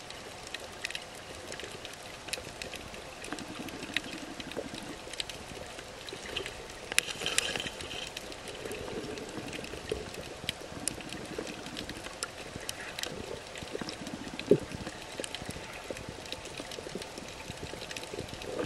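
Underwater ambient noise picked up by a submerged camera: a steady watery wash with scattered small clicks and crackles, a brief louder rush of bubbling about seven seconds in, and a single sharp knock about fourteen seconds in.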